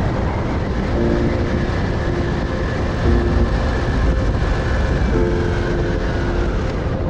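Yamaha Virago V-twin motorcycle engine running at a steady cruise, with wind rushing over the rider-mounted microphone.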